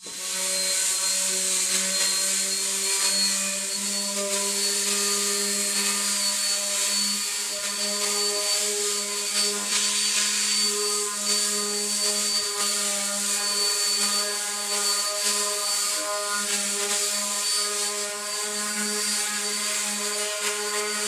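Random orbital sander running steadily on a maple and walnut board panel, a steady motor hum over the hiss of 80- to 120-grit sandpaper on the wood.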